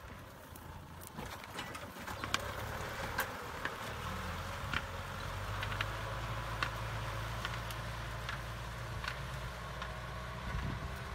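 Kubota M6040SU tractor's diesel engine running steadily under load while pulling a disc plough through dry soil, with scattered sharp clicks at irregular intervals.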